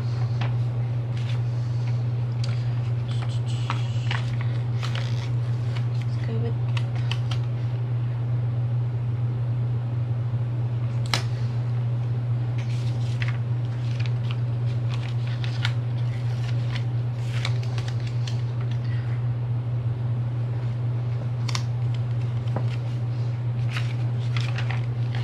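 A steady low hum under scattered light taps and paper rustles as planner stickers are handled and pressed onto the pages of a spiral planner.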